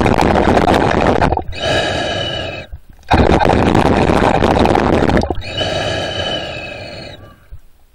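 A swimmer's breathing heard underwater, in two full breath cycles. Each is a loud rush of air followed by a hiss with a whistling tone, with a brief pause between breaths.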